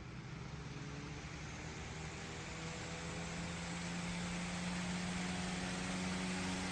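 12-inch oscillating electric table fan running: an even rush of air over a low motor hum. The hum rises slightly in pitch and the sound grows louder as the fan speeds up.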